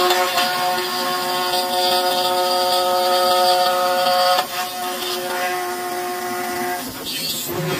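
Aluminium lock-hole milling machine running with a steady whine of several tones. The whine steps down about four and a half seconds in and breaks off into a rougher noise near the end.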